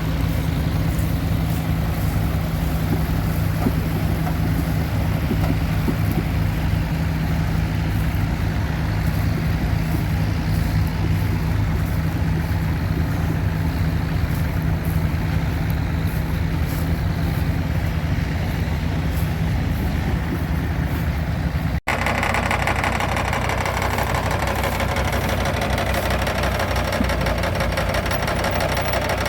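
Vintage tractor engine running steadily with baler machinery, an Allis-Chalmers Roto-Baler at work. About three-quarters of the way through the sound cuts abruptly to a brighter, busier running of the same kind of machinery.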